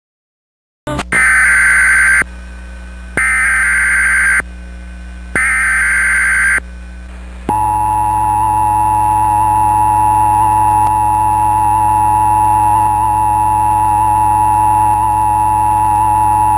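Emergency Alert System tones announcing a civil emergency message: three short bursts of screeching SAME digital header data about a second apart, then the steady two-tone EAS attention signal, held for about nine seconds.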